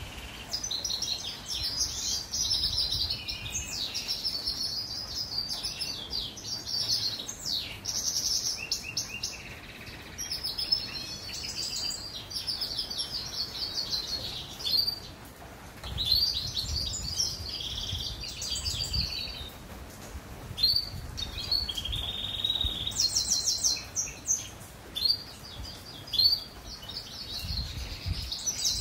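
Goldfinch mule, a European goldfinch × canary hybrid, singing a long run of rapid twittering trills and warbled phrases with only brief pauses.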